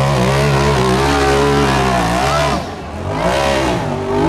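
A side-by-side UTV's engine revs hard under throttle, its pitch rising and falling. About two and a half seconds in it eases off briefly, then revs back up.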